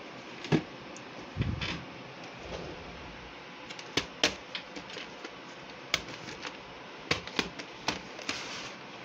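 A VHS cassette and its case being handled: a string of sharp plastic clicks and knocks, several in quick succession near the end, with a duller knock about a second and a half in and a short rustle near the end.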